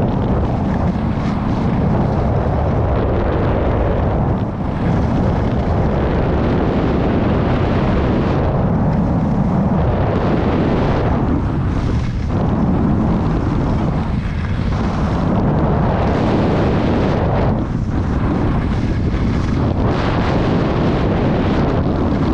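Wind buffeting a helmet-mounted GoPro's microphone at skiing speed, a loud steady rumble, over the hiss of skis sliding on groomed snow that thins out briefly several times.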